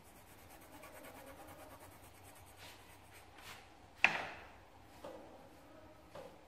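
Faint rubbing and handling noises on a tabletop, with one sharp knock about four seconds in and two lighter knocks after it.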